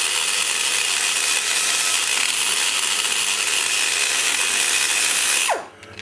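High-speed die grinder with a small burr running steadily as it cuts the aluminum around the exhaust valve guide of a cylinder head, with a high whine over a hiss. Near the end the grinder is let off and winds down with a falling pitch.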